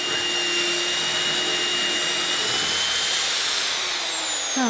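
Low-speed mixer drill running a hole saw into a solid-wood door, the motor whining steadily as the saw cuts. Near the end the whine falls in pitch as the drill slows under load.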